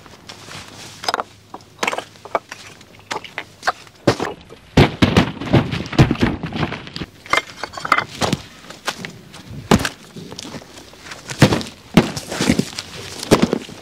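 Footsteps on gravel and loose stones, an irregular run of sharp steps, with dull thuds of cardboard boxes being lifted and set down.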